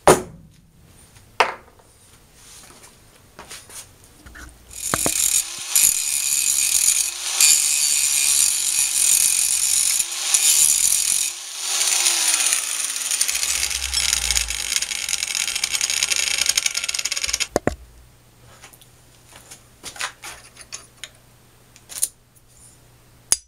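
Handheld angle grinder running and cutting into a metal castor clamped in a bench vise, to take the castor apart; it starts about five seconds in and stops about six seconds before the end. A few knocks and clicks of handling tools and parts before and after.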